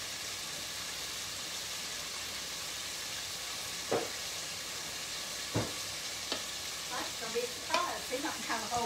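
Chicken nuggets deep-frying in a pot of oil, with a steady sizzle. A few light knocks come in the second half.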